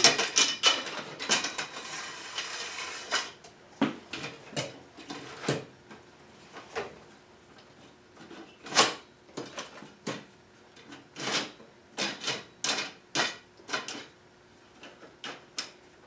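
Aluminium extrusion rails and steel brackets and bolts of a Holzfforma Alaskan chainsaw mill clinking and clattering on a wooden workbench while being fitted together. It starts as a dense scraping clatter for about three seconds, then turns to scattered single knocks and clicks at uneven spacing.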